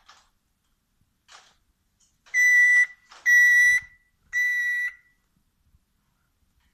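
Senegal parrot imitating a microwave oven's beeper: three steady high beeps, each about half a second long and about a second apart.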